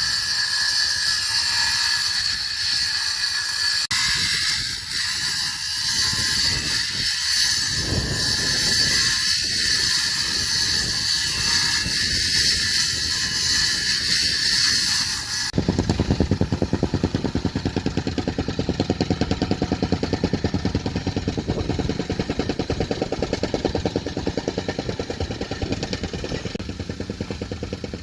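Heavy construction machinery engine running. About halfway through, an abrupt change gives way to a steadier, evenly pulsing engine sound.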